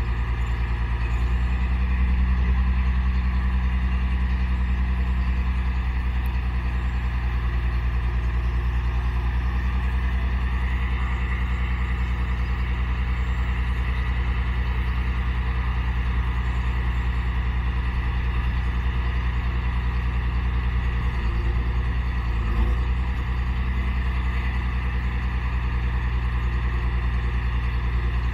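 Diesel engine of a Sterling Acterra crane and dump truck running steadily at idle while the hydraulics lower the dump body, with a brief bump about three quarters of the way in.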